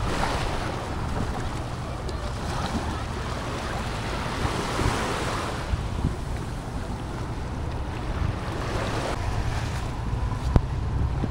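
Wind buffeting the microphone over the steady wash of waves on the shore, with one sharp click near the end.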